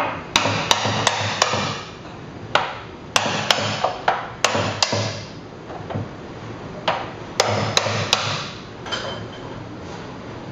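Hammer striking a hoop driver to drive the metal hoops down onto an oak barrel, sharp blows in quick runs of three to five with short pauses between. The blows stop about three-quarters of the way through.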